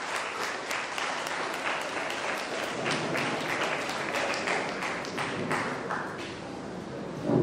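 Audience applauding, a dense patter of clapping that thins out about six seconds in.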